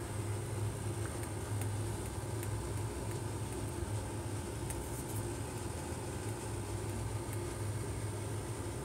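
HVAC blower running: a steady low hum with a faint high whine, broken by a few faint ticks.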